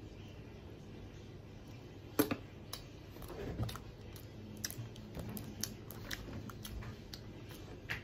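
A person chewing bread with the mouth full: scattered soft clicks and smacks, with one louder click about two seconds in.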